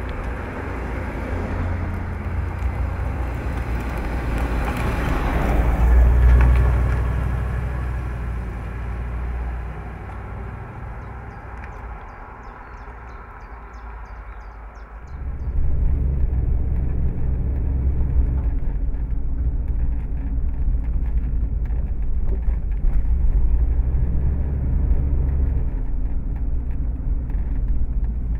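Rolls-Royce Camargue's 6.75-litre V8 and tyres as the car drives past: the sound swells as it approaches, peaks about six seconds in, then fades as it drives away. About fifteen seconds in it changes suddenly to a louder, steady low rumble of the car under way, heard from inside the cabin.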